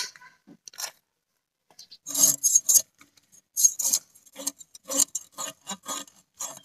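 Fish scales being scraped off against a curved boti blade in repeated rasping strokes. After a couple of scrapes and a short pause, a quick run starts about two seconds in, two or three strokes a second.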